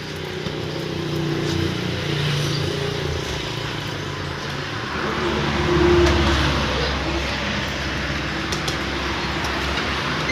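A motor vehicle's engine running, growing louder to a peak about six seconds in and then easing off.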